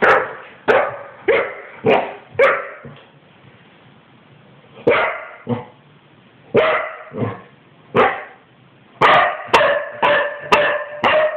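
Spaniel barking in play over a tug toy: short sharp barks, a quick run of about five at the start, single barks spaced out in the middle, and a fast string of about six near the end.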